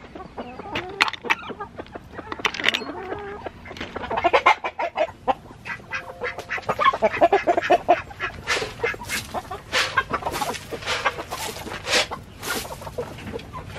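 A flock of hens clucking and calling as they crowd in for feed, with a busy run of short, sharp sounds in the second half.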